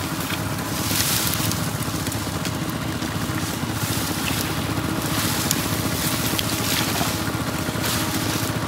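Dry brush branches crackling and scraping as they are dragged off a brush pile in repeated rustling rushes. Under them, an engine runs with a steady drone.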